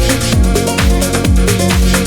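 Electronic dance music with a fast, steady kick-drum beat, about three kicks a second, over busy hi-hats and held synth notes.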